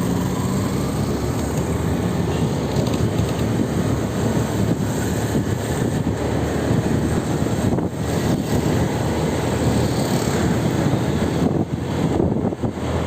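Steady vehicle and road noise: a continuous low rumble with no clear events.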